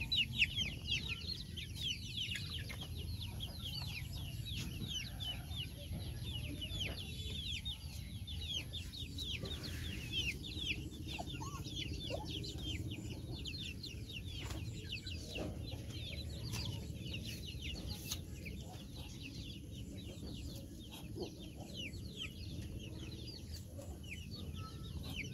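Young chickens peeping: a dense, continuous stream of short, high-pitched, falling cheeps from several birds.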